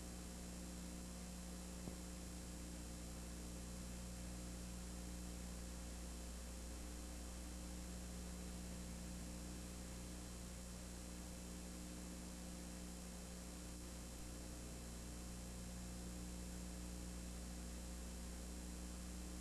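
Steady low electrical hum with an even hiss over it and no sound from the game itself, with a single faint tick about two seconds in.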